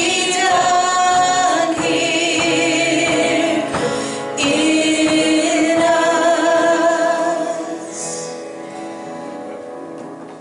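Church congregation singing a hymn together, led by a man's voice on a microphone, with long held notes. The singing fades away over the last few seconds as the song ends.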